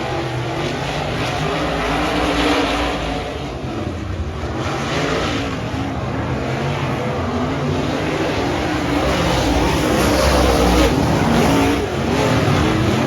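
Several dirt-track race car engines running on the track, their pitch rising and falling as they accelerate and ease off through the corners, a little louder about ten seconds in.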